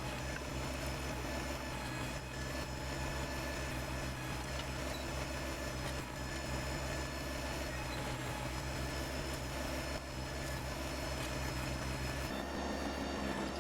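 Kubota BX sub-compact tractor's diesel engine running steadily. Its low note changes about 12 seconds in.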